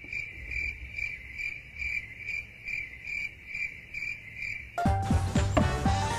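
Crickets chirping in an even rhythm, about two chirps a second. Near the end the chirping cuts off and music with drum beats comes in.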